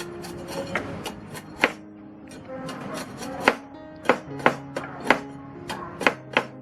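Knife chopping food on a cutting board: a series of sharp, irregularly spaced chops, about ten in all, some louder than others.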